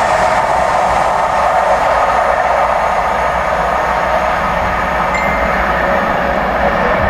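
Cross Country Class 43 HST running through at high speed: a loud, steady rushing of the train on the rails.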